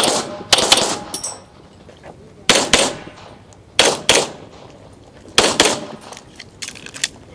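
Beretta 92 9mm pistol firing in quick double taps. There are pairs of sharp shots a fraction of a second apart, a new pair every second and a half or so, with a slightly quieter pair near the end.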